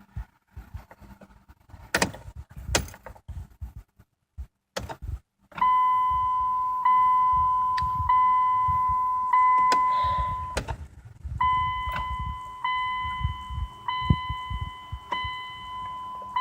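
A few sharp clicks, then the Dodge Journey's electronic warning chime begins about five and a half seconds in: a steady tone re-struck about every 1.2 seconds, fading after each strike, with a short break past the middle.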